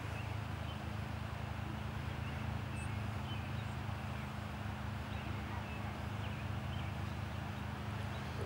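Steady low hum and hiss of outdoor background, with a few faint, short, high chirps scattered through it.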